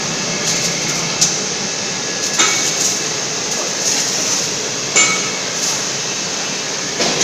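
Steady machinery noise in a welding shop where a submerged-arc welding gantry is at work, broken by sharp metallic clinks about a second in, at two and a half seconds and at five seconds.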